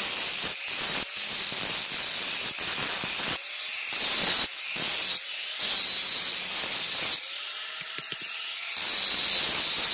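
Electric angle grinder with an abrasive disc grinding the steel of a blunt golok blade to reshape it: a steady high whine over a harsh grinding hiss. The grinding breaks off and resumes several times as the disc is pressed on and lifted.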